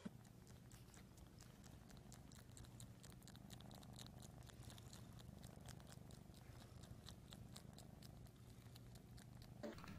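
Cat purring softly, a low steady rumble, with faint clicks from its mouth as it licks its lips.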